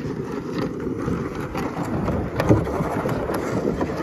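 Loaded plastic sled dragged over a thin layer of snow on gravel: a continuous rough scraping rumble with small crackles through it.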